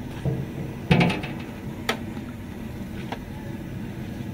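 Metal clatter from cooking: a large metal plate knocking against the rim of a big metal cooking pot as food is scraped off it, and a metal ladle striking the pot. There are three sharp knocks, the loudest about a second in, over a steady low background hum.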